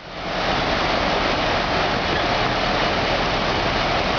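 Desert flash-flood water rushing, a steady loud roar after a brief dropout at the very start.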